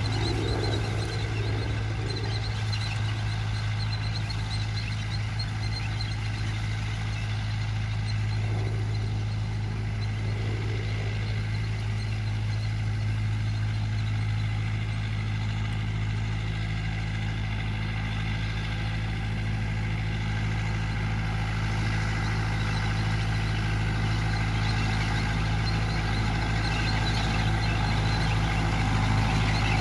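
Farm tractor engine running steadily at a constant speed: an even low drone that gets slightly louder near the end.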